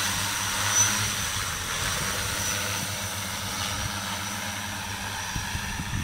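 JT6L-606 multirotor agricultural sprayer drone's motors and propellers humming steadily in flight, growing slightly quieter as it flies away.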